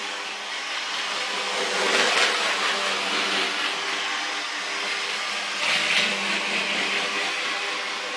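Mehano HO gauge model Thalys electric multiple unit running around an oval of track: a steady whirr of its small electric motor and gearing with wheel noise on the rails, swelling twice.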